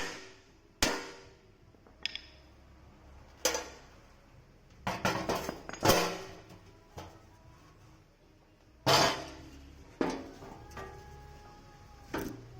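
Irregular metal knocks and clanks, about a dozen hits that each ring briefly, with a quick cluster near the middle, like hand tools striking and handling metal parts.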